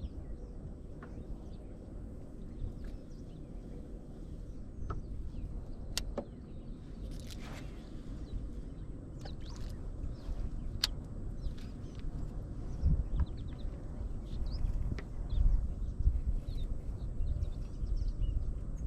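Outdoor ambience on open water: a low, uneven rumble that gets louder and gustier in the second half, with faint bird chirps and a couple of sharp clicks.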